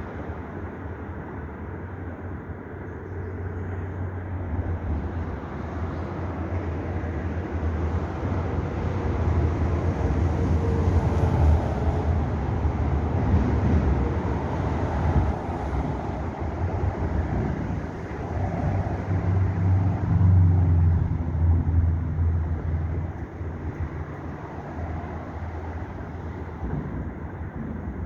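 Low rumble of a passing vehicle, swelling and fading, loudest about ten to fifteen seconds in and again around twenty seconds in.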